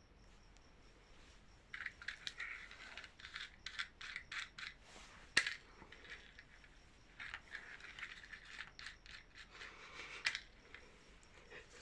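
Hands opening and handling small packaging: two stretches of quick scraping, rustling and clicking, each ending in a sharp click, one about five seconds in and one about ten seconds in.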